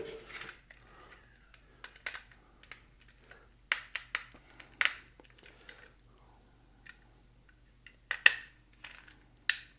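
Scattered sharp clicks and taps of a precision screwdriver and its small bits being handled, swapped and fitted into a tiny Phillips screw, with a few louder clicks in the second half.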